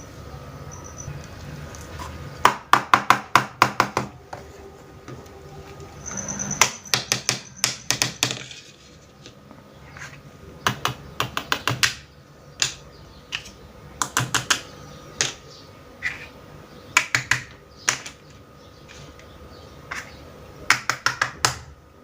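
Quick runs of light clicks and taps from small plastic toy kitchen pieces being handled, in short bursts of several taps each with pauses between.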